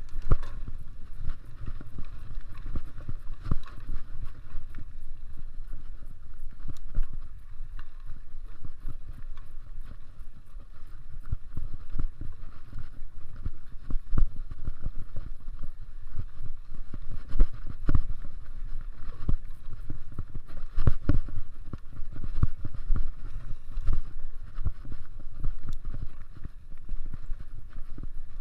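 Mountain bike ridden over a rough dirt trail: a steady rumble of wind buffeting the microphone and tyre noise, broken by frequent irregular knocks and rattles as the bike and camera take bumps.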